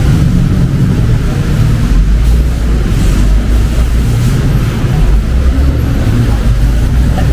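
Busy city street traffic: a steady low rumble of passing car engines and tyres.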